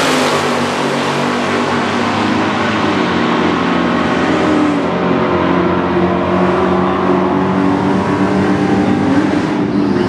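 Two drag-racing cars at wide-open throttle making a quarter-mile pass, engine pitch climbing and dropping several times through the gears. The sound grows duller as the cars pull away down the strip.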